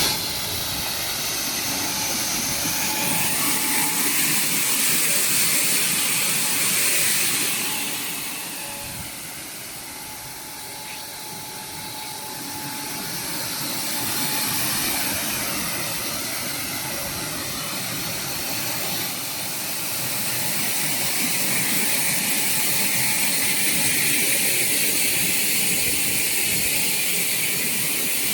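Apple air-bubble washing machine running: a steady hiss of air blowing through the wash water, which dips quieter for a few seconds about a third of the way in and then builds again.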